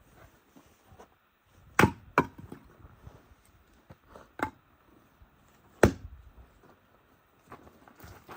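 Firewood being chopped: four sharp strikes at irregular spacing, with fainter knocks between.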